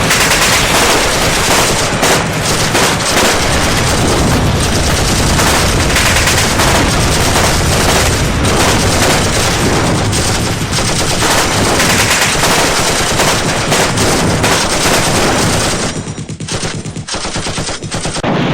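Rapid automatic gunfire, many overlapping bursts firing almost without pause, easing off for a moment near the end before picking up again.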